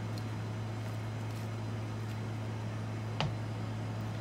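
A steady low hum, with a single sharp click a little past three seconds in.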